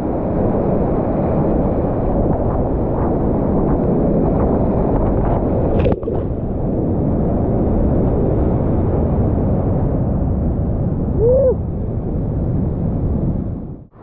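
Whitewater rapids rushing and splashing around a kayak, heard from a camera at water level: a loud, dense, steady rush that cuts off suddenly at the very end.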